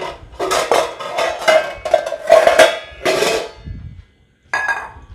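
Metal spoon scraping and knocking against a kadhai while stirring thick chutney. There are about ten quick strokes with a metallic ring over three seconds, then a short pause and one more stroke near the end.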